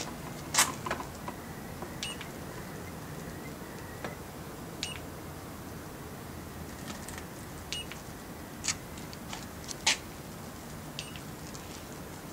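Handheld Sovereign Quantum capacitance moisture meter giving four short electronic beeps about three seconds apart as its sensor is pressed to the fibreglass hull to take readings. A few sharp clicks of the sensor or handling come between them.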